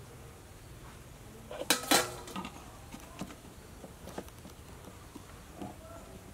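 Red plastic lid being put on a large glass jar and screwed shut: two sharp knocks of plastic on glass about two seconds in, then a few lighter clicks as the lid is pressed and turned.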